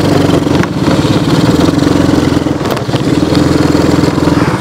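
A small ATV's 125 cc four-stroke petrol engine running while the quad is ridden, a steady engine note with a couple of brief dips in throttle.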